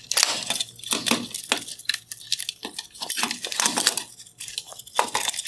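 Plastic wire-harness connector clips on a Mercedes SL bi-xenon headlight's projector being unlatched and pulled apart: an irregular run of sharp plastic clicks and scrapes, with the wires and housing rustling as they are handled.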